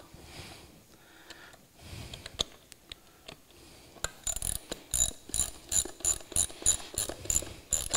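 Hand socket ratchet clicking as it is swung back and forth, tightening the hub bolts' nuts on a balloon-tire wheel. A few faint clicks at first, then about halfway through a steady run of sharp clicks, about four a second.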